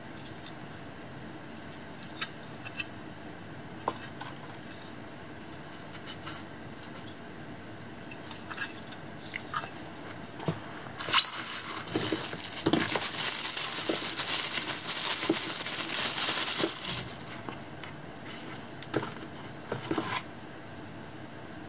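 Small clicks and taps of plastic parts handled in polystyrene packing, then a thin plastic bag crinkling and rustling loudly for about six seconds, followed by a few more clicks.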